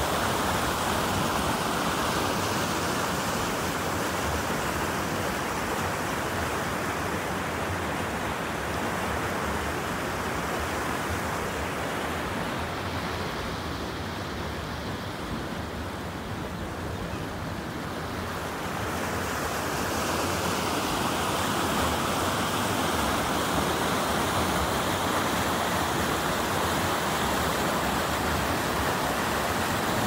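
Rushing water of a small waterfall cascading over rocks, a steady full hiss. It turns softer and duller for several seconds midway, then comes back at full strength.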